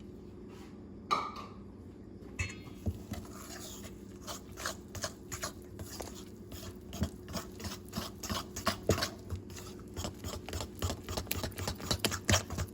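A fork stirring thick banana muffin batter in a bowl, tapping and scraping against the bowl in quick strokes. The strokes begin about two and a half seconds in and get faster and louder towards the end.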